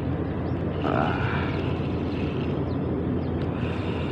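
Steady low rumble of a boat engine running on the river.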